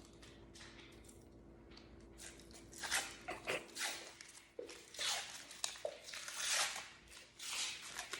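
Paper wrapper being peeled and torn off a tube of refrigerated crescent-roll dough, heard as a series of crinkling, rustling tears that start about three seconds in, over a faint steady hum.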